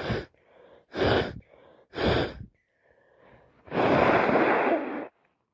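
A person with a heavy, wet head cold sneezing three times in quick succession, about a second apart, followed by a longer, noisy, breathy rush lasting over a second.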